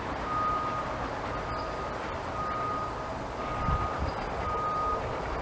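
A vehicle reversing alarm beeping about once a second, a single high tone, over a steady rumble of background noise.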